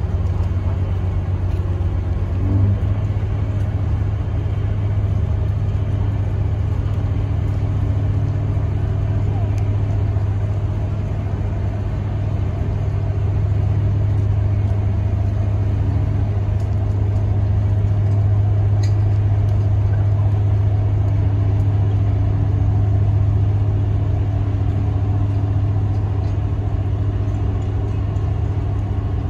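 Boat engine running with a loud, steady low drone.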